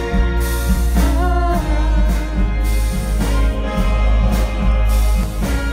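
Symphony orchestra with a rhythm section playing the instrumental opening of a pop-song arrangement live, over a steady low beat.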